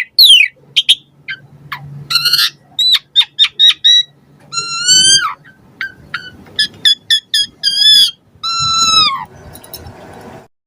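Asian pied starling singing a varied song: quick runs of short sharp notes and chatter mixed with loud clear whistles, including two longer drawn-out whistles, one about halfway through and one near the end, that slide down in pitch as they finish.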